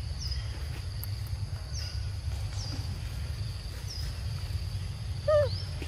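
Forest ambience: a steady high insect drone with short, high, downward-sliding bird chirps repeating about once a second over a low rumble. Near the end comes a short, louder animal call that wavers in pitch and then sweeps upward.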